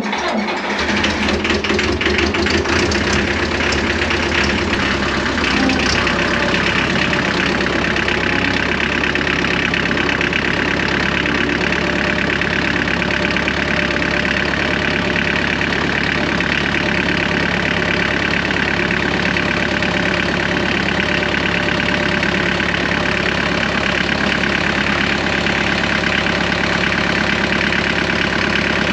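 McCormick D430 tractor's diesel engine, just started, coming up to speed in the first second and then idling steadily with an even diesel clatter.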